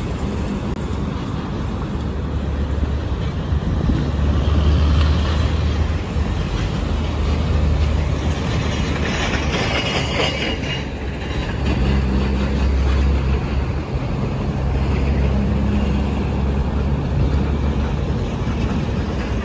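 Road traffic: a steady rumble of buses, cars and trucks driving past, a little louder around the middle.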